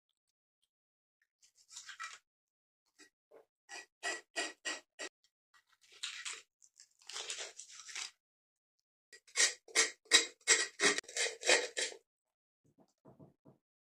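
A knife working a raw fish: runs of quick scraping strokes, about four to five a second, with a couple of longer scrapes in between.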